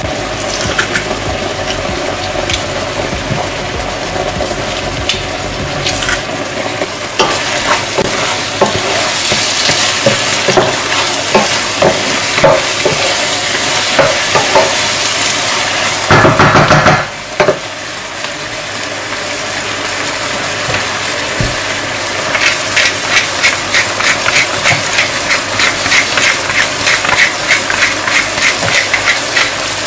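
Food frying and sizzling in a pan while a utensil stirs and scrapes against it. There is a loud burst lasting about a second near the middle, and from about two-thirds of the way in, quick regular stirring strokes, several a second.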